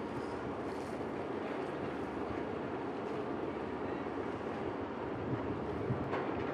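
Steady low rumble of a ship under way, with no distinct events.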